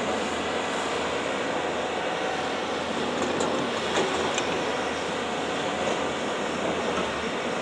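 Diesel engine of heavy earthmoving machinery (excavator or backhoe loader) running steadily under work, with a few brief clicks about three to four seconds in.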